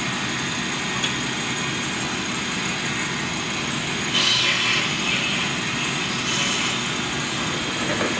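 FMC B-501 brake lathe running steadily with a brake rotor mounted, a constant machine hum. About four seconds in there is a brief, louder scraping hiss, and a fainter one a little after six seconds, while the cutting bits are being set to depth.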